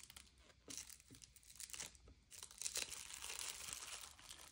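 Plastic bubble wrap crinkling faintly in irregular patches as hands gather and fold its corners together.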